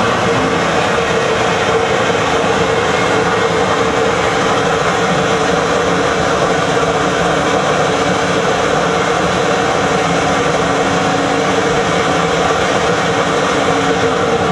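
SuperFlow cylinder-head flow bench running at full flow: a loud, steady rush of air drawn through a Chrysler Hemi cylinder head's port at peak valve lift, with a steady motor hum.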